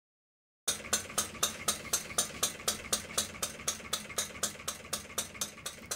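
A steady, even run of sharp clicks, about four a second, starting suddenly just under a second in.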